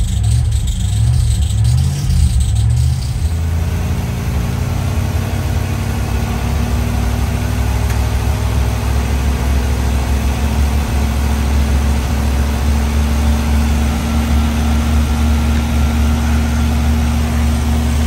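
Chevy 305 small-block V8 of a 1986 Monte Carlo SS running at a somewhat high idle, newly started and still warming up. About three seconds in, its sound turns fuller and steadier.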